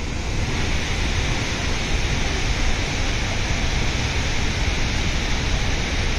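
Steady rushing roar of a large waterfall, Athirappilly Falls, with water pouring and crashing and no change in level.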